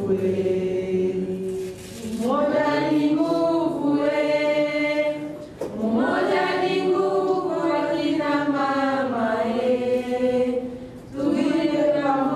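A group of women singing together in chorus without instruments, in long held phrases with brief breaks between them.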